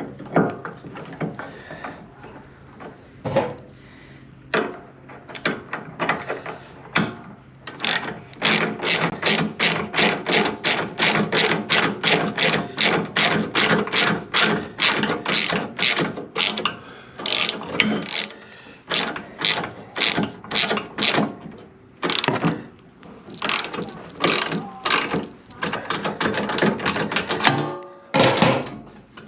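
Hand ratchet with a 6 mm hex socket clicking as a bolt is turned in. It goes in quick runs of about four clicks a second with short pauses between strokes.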